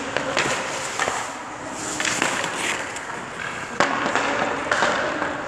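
Hockey skate blades scraping and carving on rink ice, with several sharp clacks of stick and pucks, the loudest about four seconds in.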